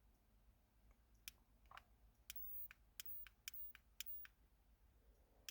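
Faint clicks of an electric arc lighter's ignition button pressed again and again, about ten irregular presses starting about a second in. The arc fails to light.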